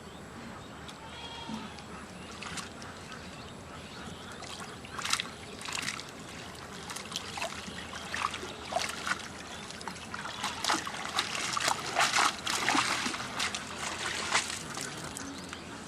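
Water splashing and sloshing in short, irregular bursts, sparse at first and busiest and loudest in the second half.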